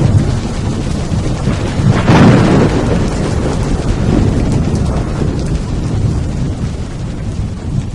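Loud fiery explosion sound effect: a long, noisy rumble that swells about two seconds in and then slowly dies away.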